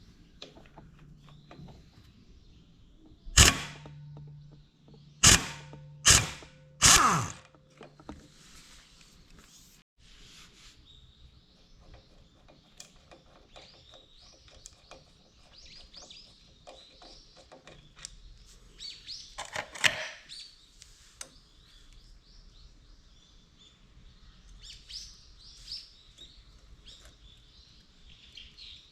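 Four loud knocks in quick succession a few seconds in, and one more about twenty seconds in, with birds chirping faintly throughout.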